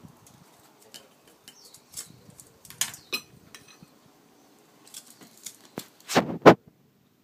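Spoon scraping and clicking against the inside of a sea urchin's shell while scooping out the roe, with scattered sharp clicks and two louder knocks about six seconds in.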